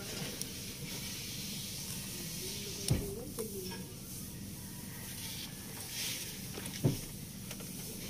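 Steady background hiss, with a few light clicks and two sharper knocks about three seconds in and near the end, as plastic wiring-harness connectors are handled.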